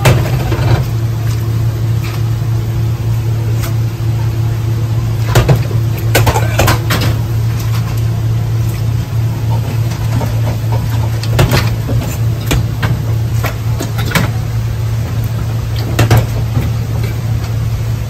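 A steady low machine hum runs throughout, with scattered clinks and knocks of stainless steel bowls as sauce-coated noodles are lifted out of a large mixing bowl and portioned into small bowls.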